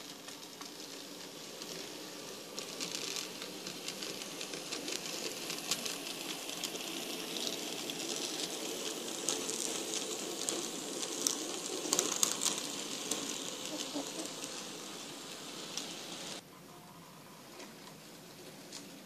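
An N scale model freight train rolling past, its small metal wheels giving a rattle of many fast clicks over the rail joints and turnouts, with a low hum underneath. It grows louder towards the middle, then drops suddenly to a quieter, steady background near the end.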